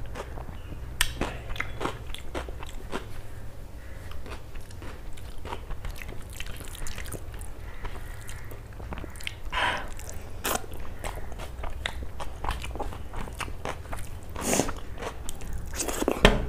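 A person eating close to the microphone: chewing and biting rice and curry eaten by hand, heard as irregular wet mouth clicks, with a few louder bites in the second half. A steady low hum runs underneath.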